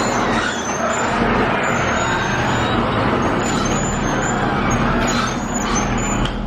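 Supercharged 2016 Chevrolet Camaro SS V8 driving, with steady engine and road noise.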